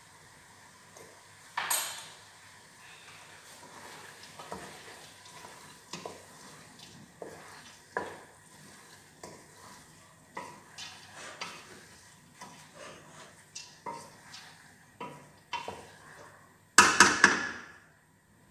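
A long-handled spoon stirring food in a large stainless steel stockpot, scraping and knocking against the pot's sides at an irregular pace. Near the end the spoon is rapped three or four times in quick succession on the pot, the loudest sounds.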